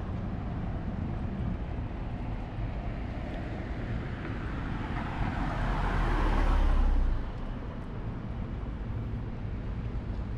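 City street traffic noise, with one vehicle passing close by: its rumble swells over a few seconds and falls away sharply about seven seconds in.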